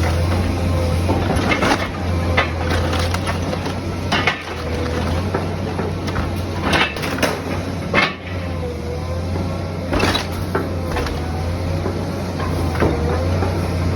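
Wooden structure being torn down: timber cracking, splintering and crunching in irregular sharp breaks, the strongest about 4, 7, 8 and 10 seconds in, over the steady low drone of a heavy machine's engine.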